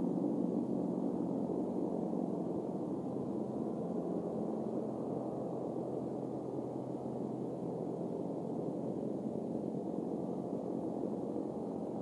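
Steady low rushing background noise with no distinct bird calls.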